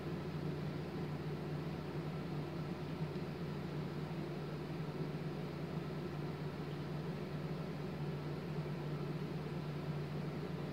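Steady low hum with an even hiss: continuous room background noise, with no distinct handling sounds.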